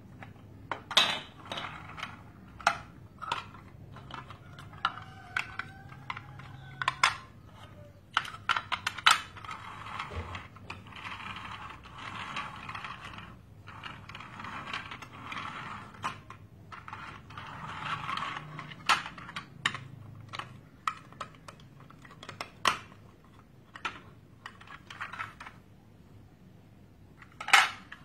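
Plastic toy dump truck and large building bricks being handled: irregular sharp clicks and knocks of plastic on plastic, with stretches of scraping as the dump bed and bricks are moved.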